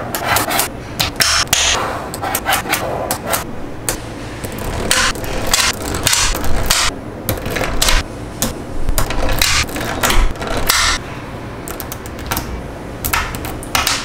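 Small magnetic balls clicking and snapping together as they are handled and placed, in irregular runs of sharp clicks with short rattles.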